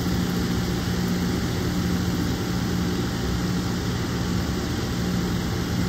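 A 2-ton central air conditioner's outdoor condenser running steadily, compressor and fan going with a constant low hum. It has just started on the limited power of two small inverter generators in eco mode through a soft starter.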